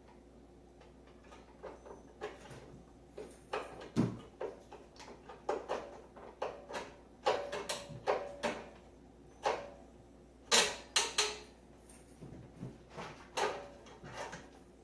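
Irregular clicks, taps and knocks of hands and pliers working small plastic and metal parts of a microwave oven door latch, the sharpest knocks about four seconds in and again around ten and a half seconds.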